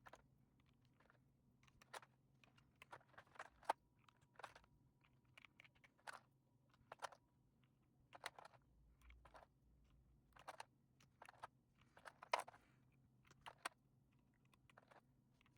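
Keystrokes on an Akko M1 V5 mechanical keyboard fitted with EPOMAKER Bluebird switches, pressed one at a time at an uneven pace of about two a second, a few landing harder than the rest.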